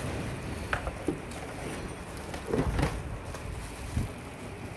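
Cardboard boxes and plastic-wrapped toy parts being handled: scattered knocks, scrapes and rustling. The loudest is a cluster of knocks a little under three seconds in.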